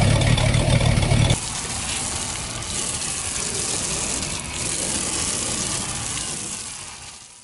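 Boat outboard motor running with a low rumble, then shutting off about a second in. Steady gushing, hissing water carries on after it and fades out near the end.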